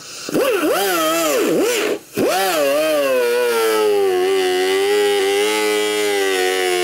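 Hand-held air-powered cutting tool running and cutting through an ATV's plastic front body panel. Its whine dips in pitch and recovers several times as the wheel bites and is eased off, stops for a moment about two seconds in, then runs steadier under load, sagging slightly.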